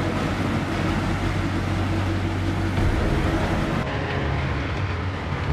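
Steady rumbling engine and water noise of tugboats pushing a large ship, with a couple of low steady tones under it. The high hiss drops away about four seconds in.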